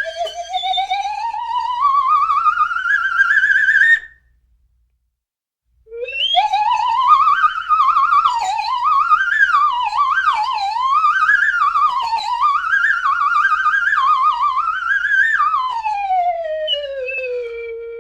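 Cartoon vibrating-whistle sound effect: a whistle tone with a fast wobble rises steadily for about four seconds and cuts off. After a short gap a second wobbling whistle swoops up and down, then slides down near the end and holds on a low note.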